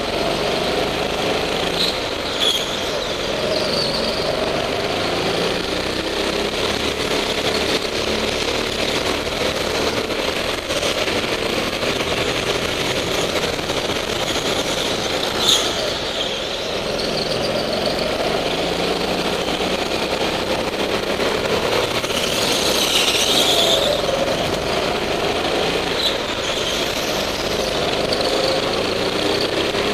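Small petrol go-kart engines running hard, their pitch rising and falling as the karts accelerate and lift through the corners. Tyres squeal on the concrete floor a few times, longest about two-thirds of the way through, and there is one short sharp knock about halfway.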